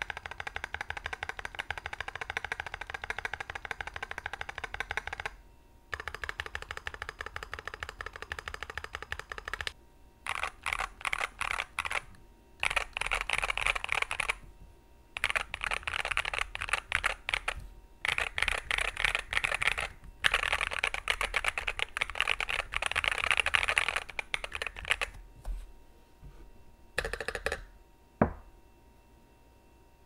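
Fast typing on a custom 65% mechanical keyboard with lubed Neapolitan tactile switches, a brass plate and PBT keycaps. The keystrokes come in dense runs of a few seconds broken by short pauses, then thin out to a few scattered keys and one last separate click near the end.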